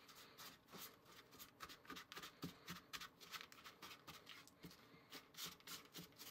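Faint scraping and rustling of a spatula stirring a crumbly rolled-oat mixture in a small plastic bowl, in quick, irregular strokes.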